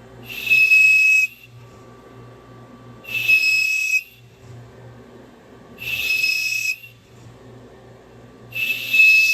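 CNC lathe running, with a high whistling sound in four bursts of about a second each, roughly three seconds apart, over a low steady machine hum.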